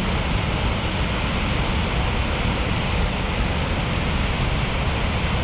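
Loud, steady rush of heavy water being released through Fort Gibson Dam, an even noise with no breaks.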